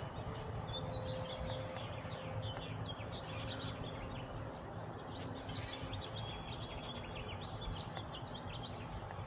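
Wild birds chirping and singing, many short overlapping chirps with some rising and falling whistled notes, over a steady low background noise.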